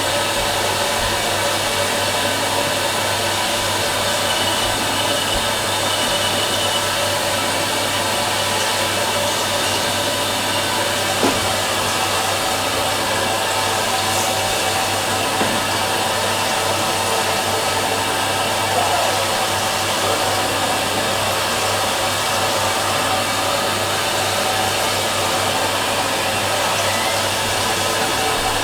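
Fisher & Paykel MW512 washing machine running: a steady, even whirring noise with a constant low hum underneath, with no change in speed.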